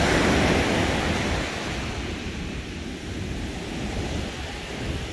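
Ocean surf breaking and washing up a sandy beach, with wind on the microphone; loudest in the first second or so, then easing a little.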